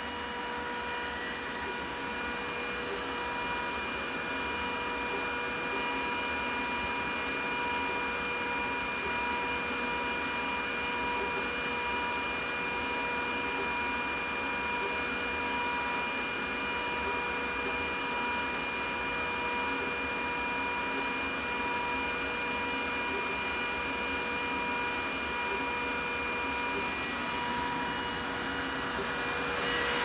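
Glowforge Plus laser cutter's cooling fans running together with an external exhaust fan: a steady fan noise carrying a high whine at several fixed pitches. Most of the noise comes from the cooling fans inside the Glowforge.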